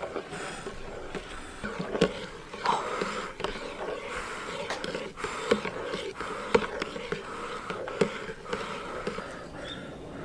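Metal spoon stirring and scooping thick, hot porridge in a ceramic bowl: soft scraping with several sharp clinks of the spoon against the bowl, along with puffs of blowing to cool it.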